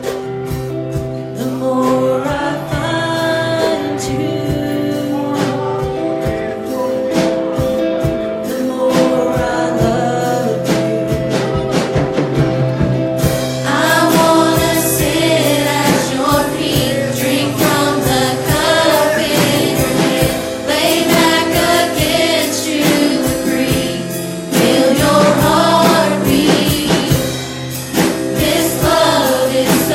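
Congregational gospel singing with instrumental accompaniment, growing fuller and louder about 13 seconds in.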